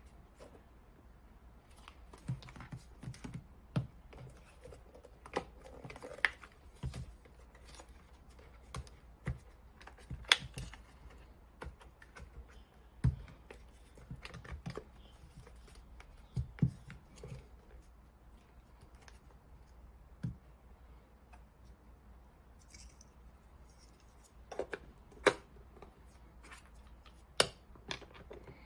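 Plastic and rubber housing parts of a handheld scan tool being handled and pressed together by hand: irregular clicks and knocks with rubbing between them, a few sharper clicks in the middle and near the end.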